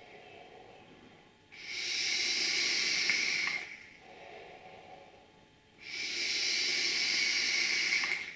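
Two pulls of about two seconds each on an Eleaf Lemo 3 rebuildable tank atomizer, fired at 59 watts on the supplied 0.45-ohm Clapton coils. Each pull is a steady hiss of air through the wide-open airflow and the coils, one about a second and a half in and one near six seconds. Softer exhaled breath falls between them, and the wick keeps up with no feeding problems even at this power.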